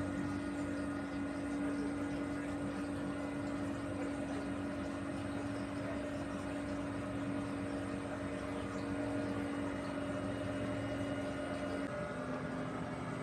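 Tugboat engine running steadily under load, a constant hum whose pitch shifts slightly about twelve seconds in.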